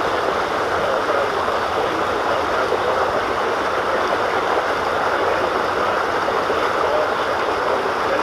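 Water rushing steadily down an open water slide flume, a constant even splashing flow.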